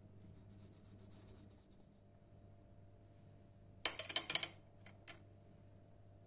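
A brief clatter of clicks and scrapes from kitchen utensils on the countertop about four seconds in, then two light clicks, over a faint steady hum. Before it there is faint rustling as a plastic cutter presses into the dough.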